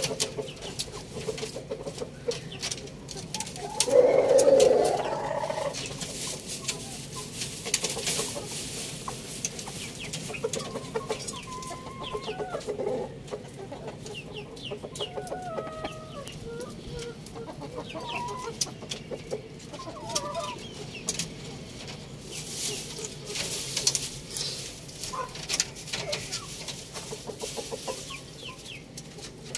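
Chickens, roosters and hens, clucking and calling in a coop, with one louder, longer call about four seconds in and many short clicks among the calls.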